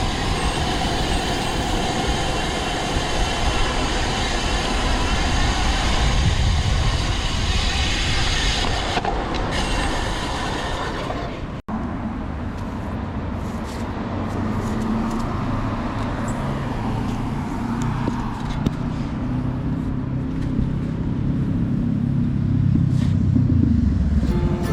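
Steady rush of wind and road noise on the camera's microphone while cycling, with a low hum of passing traffic in the second half. The sound breaks off abruptly about halfway through and resumes straight away.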